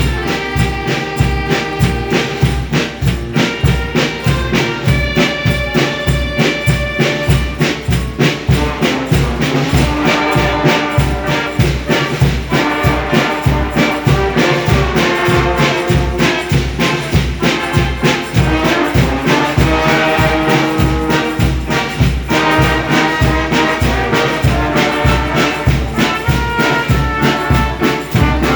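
A brass band playing an instrumental passage, with trumpets and trombones carrying held melody lines over a steady, even bass beat.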